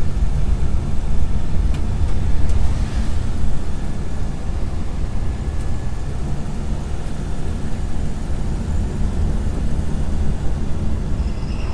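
1964 Chevy Nova engine idling steadily with the A/C compressor running.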